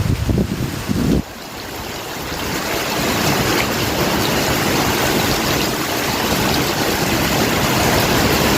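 Heavy rain falling in a dense, steady hiss. A low rumble cuts off suddenly about a second in, and the rain then swells and holds steady.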